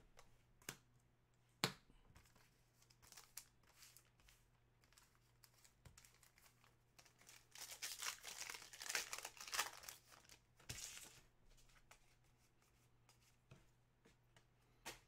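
A trading card pack's wrapper being torn open and crinkled: a few seconds of crackling about halfway through, with a few faint taps of cards being handled before it.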